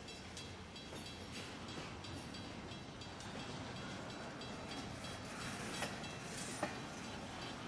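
Double-stack intermodal well cars rolling past, a steady rumble of steel wheels on rail with a few sharp clicks, the loudest about six and a half seconds in.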